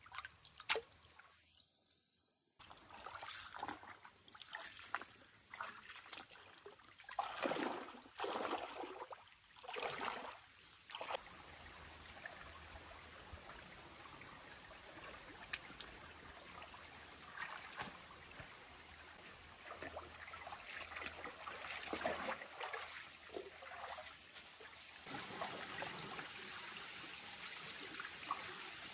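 A shallow stream trickles while hands slosh and splash in the water at irregular intervals, gathering snails. The steady running-water sound grows louder near the end.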